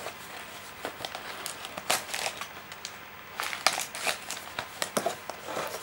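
Packaging being handled during an unboxing: crinkling with scattered light clicks and taps, busier from about three and a half seconds in.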